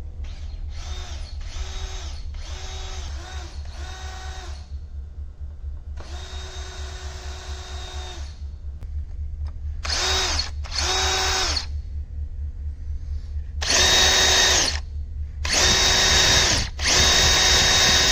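Electric power drill boring into a broken bolt snapped inside a motorcycle subframe mount, run in trigger bursts that spin up and wind down each time. There are four short bursts, then a longer one, then louder bursts near the end.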